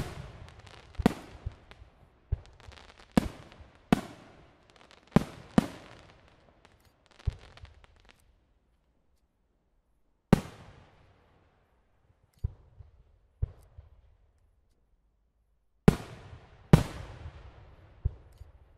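Aerial firework shells bursting overhead. A quick run of sharp bangs over the first seven seconds or so is followed by a pause, then spaced single bangs and three more near the end, each trailing off in an echo.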